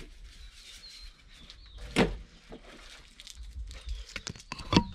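Faint bird chirps over scattered footsteps and handling noises, with a sharp knock about two seconds in and another near the end.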